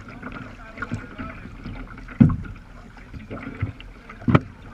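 Water splashing and slapping against a sea kayak's hull as it is paddled through choppy sea, with two sharp, loud slaps about two seconds in and near the end.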